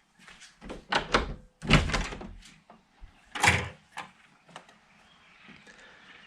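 A door being worked: several knocks and short sliding clatters over the first few seconds, then only a faint background hush.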